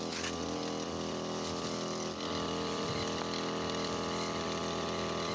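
Small petrol engine of a backpack power sprayer running steadily at constant speed while it blows pesticide spray.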